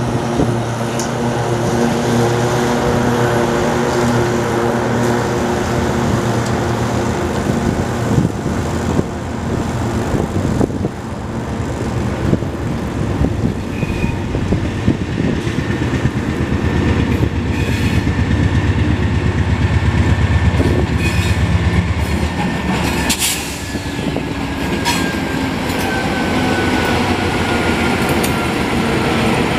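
GE C44-9W diesel-electric locomotive running. Its engine hums steadily at first, then gives a heavier rumble with a fast rattle of wheels on rail as it moves slowly along the track and passes close by. Over the last few seconds a thin whine slowly falls in pitch.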